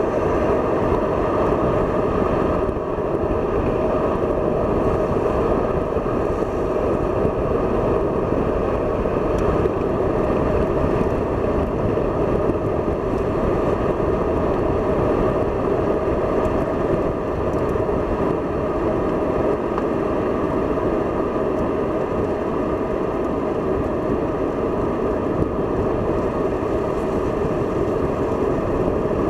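Steady in-car noise of a BMW being driven at moderate speed on a wet circuit: the engine running under a constant hiss of tyres on wet tarmac, with no sharp changes.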